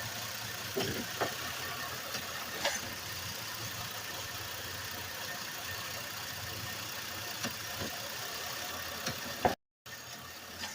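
2010 Chevrolet Impala's V6 engine idling steadily, with a few light knocks, while a worn-out lower motor mount lets the engine rock and shake the car. The sound cuts out briefly near the end.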